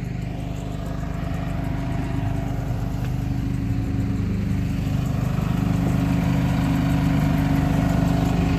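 An engine running steadily at constant speed, a low, even hum that grows a little louder towards the end.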